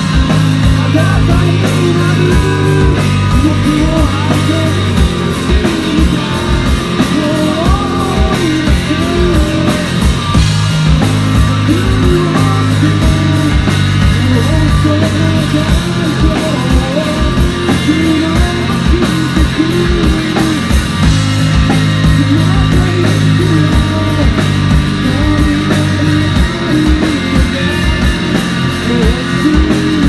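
Live rock band playing loud: electric guitar, electric bass and drum kit, with a steady drum beat.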